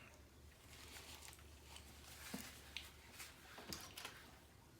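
Near silence with faint eating sounds: about eight soft, scattered clicks and smacks as cheesecake is eaten, over a low steady hum.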